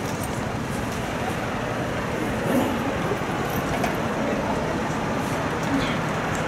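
Steady murmur of a stadium crowd chattering in the stands.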